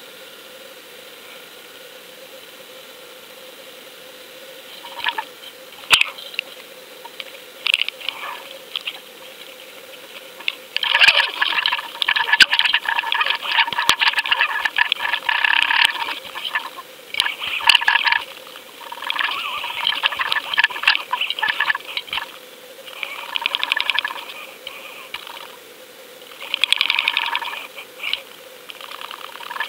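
Rattling and knocking picked up by an underwater fishing camera, in irregular bursts from about five seconds in and busiest through the middle, as a coho salmon strikes and thrashes at the trolled lure. A steady hum runs underneath.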